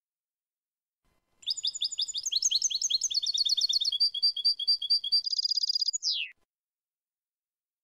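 European goldfinch singing a single song phrase in the 'canto limpio' (clean song) style, starting about a second and a half in: quick twittering notes, then a run of evenly repeated notes, a short buzzy trill and a falling glide at the end.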